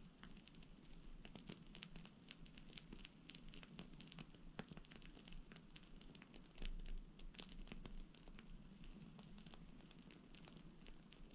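Faint crackling of burning wood: irregular small pops and snaps over a soft hiss. A brief low rumble comes about two-thirds of the way through.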